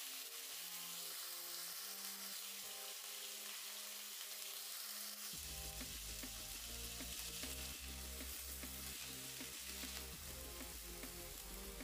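Contrafilé steak and onion rings sizzling in olive oil in a frying pan, a steady frying hiss. Background music plays along, with a bass line and beat coming in about five seconds in.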